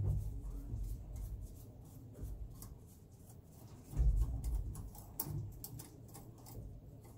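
A wrench clicking and scraping on the metal bolts and clamps of a Yanmar diesel's turbocharger as it is unfastened, with many small sharp clicks. Dull thumps come at the start and, loudest, about four seconds in.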